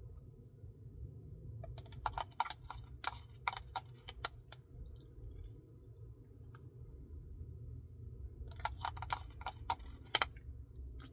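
A plastic spoon scraping and clicking inside a plastic Wendy's Frosty cup, scraping out the last of the Frosty. Two runs of quick clicks come a few seconds apart, over a steady low hum.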